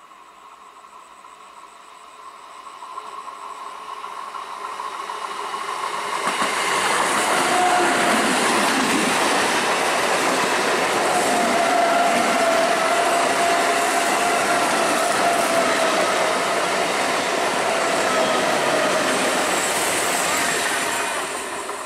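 ICF-built EMU electric local train approaching and passing close by. Its running noise grows over the first several seconds, then stays loud and steady as the coaches go past, with a steady whine through the middle. It eases near the end.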